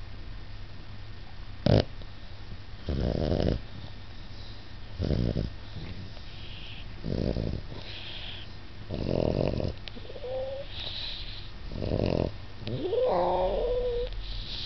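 Hedgehog snoring: a short rasping snore about every two seconds, with a sharp click early in the run and a couple of wavering, whistling squeaks between the later snores.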